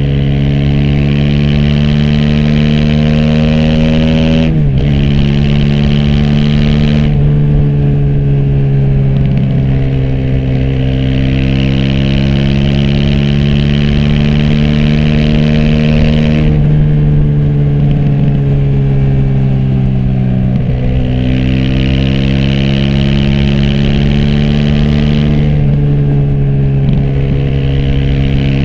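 Aprilia SX 125's single-cylinder four-stroke engine through an Arrow slip-on exhaust with dB-killer and Arrow racing header, pulling under way. The pitch climbs steadily and drops sharply at gear changes several times. It is heard from a phone in the rider's backpack.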